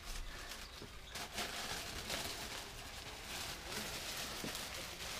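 Faint rustling and crinkling of white wrapping being handled and lifted out of a cardboard shoebox.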